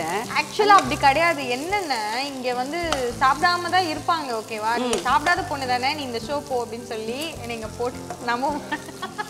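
Chopped onions frying and sizzling in hot oil in a kadai, with some stirring. A woman's voice talks over the sizzle.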